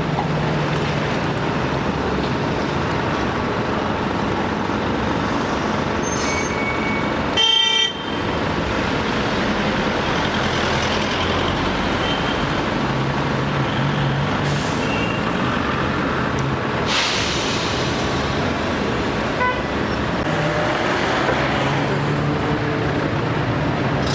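Steady city street traffic as trolleybuses and cars pass close by, with one short vehicle horn toot about seven seconds in.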